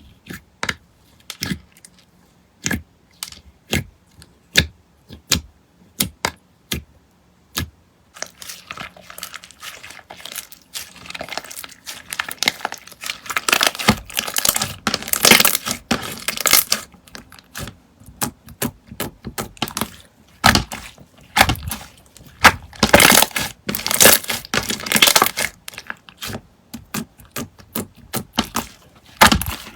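Slime being squeezed and pressed by hand, making sharp clicking pops about twice a second. From about a third of the way in, these give way to a dense, crackling squish that grows loudest in two stretches.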